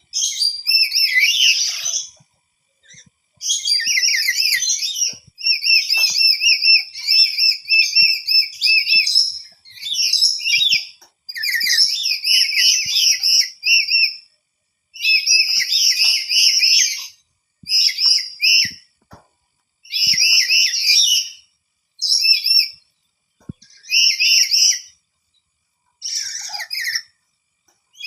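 Lory (nuri parrot) giving loud, high-pitched trilling chatter in about a dozen bouts of one to three seconds each, separated by short pauses: a startled bird calling back to other calls it hears around it.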